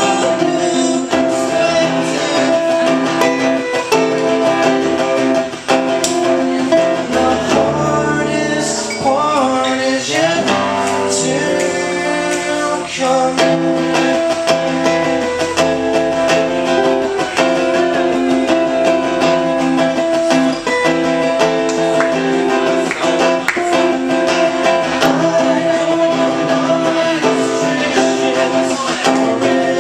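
Two acoustic guitars strummed together while a man sings, performed live as an acoustic duo.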